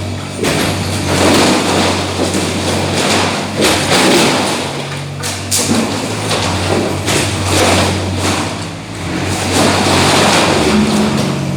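Excavator engine running steadily, with repeated knocks, thuds and clattering throughout.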